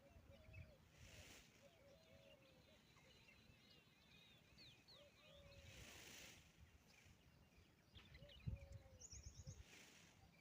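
Faint outdoor birdsong: small birds chirping high, with a short, lower hooked call repeating about once a second. Three soft rushes of noise pass through.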